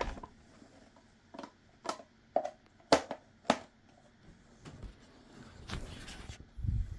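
Hard plastic clicks and knocks from the Hoover Brush Vac hand vacuum being handled with two hands, with the motor off: about six sharp clicks, then a brief rustle and a low thud near the end.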